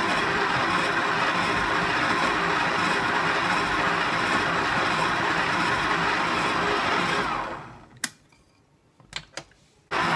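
Electric stand mixer kneading bread dough, its motor running steadily, then winding down to a stop about seven and a half seconds in. A few sharp clicks follow in the quiet, and the mixer is running again abruptly near the end.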